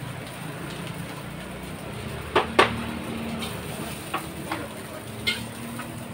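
Metal spatula clanking against a wok at a fried-rice stall: two sharp clanks about two and a half seconds in, then a few lighter clinks, over a steady low rumble.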